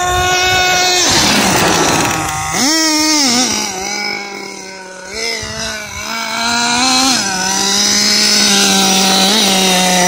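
Radio-controlled monster truck's motor buzzing as it drives: a steady high note that drops in pitch about a second in, with a hiss of tyres or throttle-off, a short rev near three seconds, then a lower steady buzz with a few small throttle blips near the end.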